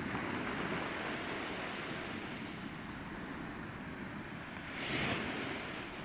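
Sea surf breaking and washing onto the beach, with some wind on the microphone; the noise swells louder about five seconds in.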